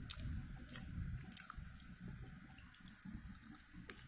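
A small child eating: faint scattered mouth clicks and smacks over low rumbling handling noise.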